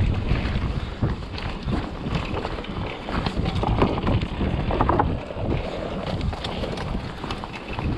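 Wind buffeting the microphone over the rattle and knocks of a hardtail mountain bike descending a rough dirt trail at speed.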